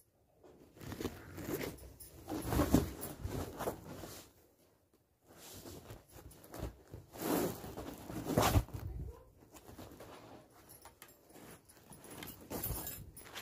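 Rustling and flapping of bedding being spread and straightened on a bed, in irregular swells with a brief lull midway.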